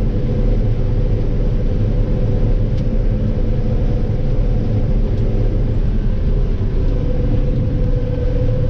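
A running engine gives a steady low rumble, with a faint steady hum above it and a couple of light clicks.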